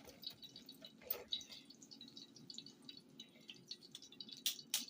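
Hot fat crackling and spitting in a frying pan, a fine irregular crackle, with two sharp knocks near the end.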